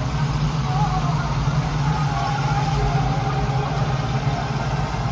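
Malkit combine harvester's engine running steadily, a constant low drone with no change in speed.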